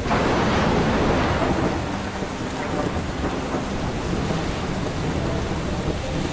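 Heavy rain with a deep rumble of thunder, cut in suddenly and loudest in the first second or so, then settling into a steady downpour.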